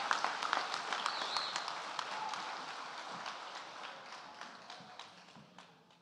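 Audience applause dying away: dense clapping at first, fading steadily and thinning to a few scattered single claps near the end.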